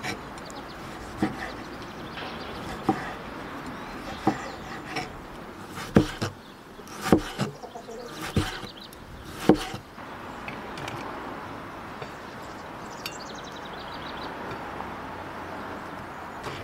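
A series of sharp knocks or taps over a steady background hiss. The knocks come singly at first, and the loudest fall close together between about six and ten seconds in. A faint chirp sounds near the end.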